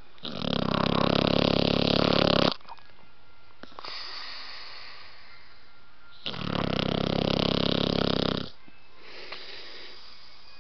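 Blue nose pit bull puppy snoring in her sleep: two long, loud snores about four seconds apart, each lasting about two seconds, with softer breaths between them.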